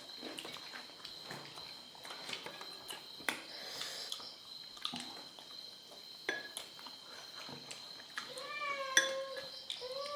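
Scattered light clicks and clinks of eating from a plate, and near the end two drawn-out high-pitched calls.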